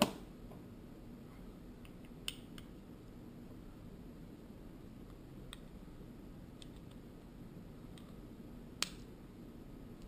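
Faint, sparse small clicks and taps of a plastic key-fob shell and its small parts being handled and fitted together, with a sharper click near the end.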